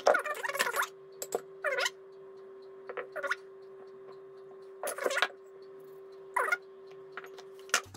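Ingredients tipped into a Monsieur Cuisine Plus food processor's stainless steel bowl: a handful of short, separate plops and scrapes as eggs, flour and butter cubes drop in, over a faint steady hum.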